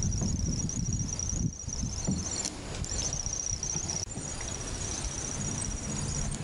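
Insects chirping in a fast, evenly pulsed high trill that breaks off about two and a half seconds in and then carries on more faintly, over a low steady rumble.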